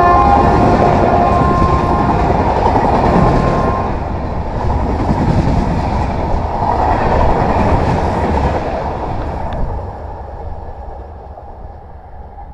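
Long-distance express train's LHB coaches running past at speed, a loud steady rush of wheel and wind noise. It fades away over the last few seconds as the end of the train goes by.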